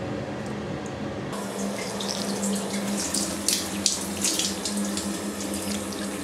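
Handheld shower head spraying water onto a wet cat's fur, a steady hiss over a low hum that turns louder and splashier about a second in.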